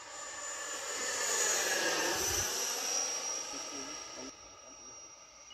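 The 80 mm electric ducted fan of an E-Flite F-16 Falcon model jet whines through a flyby. It swells to a peak, drops in pitch as it passes, then fades and falls off sharply near the end.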